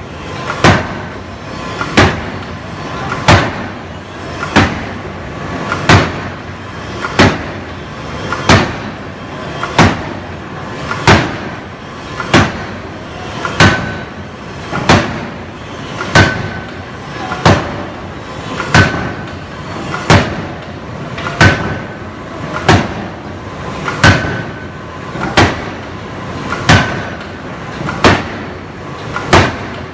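Anyang hydraulic open-die forging hammer, converted from an old steam-pneumatic hammer, striking a red-hot steel flange blank in a steady rhythm of heavy blows, about one every 1.3 seconds. There are lighter knocks between the main blows.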